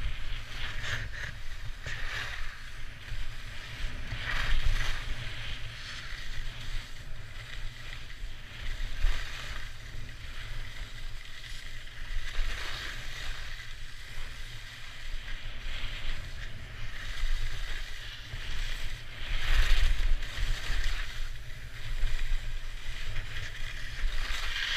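Skis carving and scraping over groomed snow, in a surge of scraping every few seconds as the skier turns, over a steady rumble of wind buffeting the microphone.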